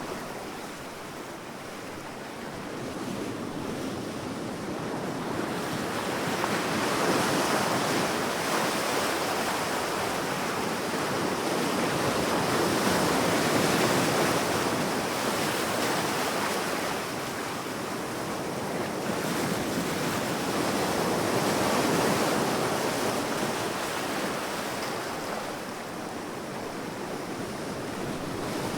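Sea waves breaking and washing up on a sandy beach, a steady rush of surf that swells and eases every several seconds.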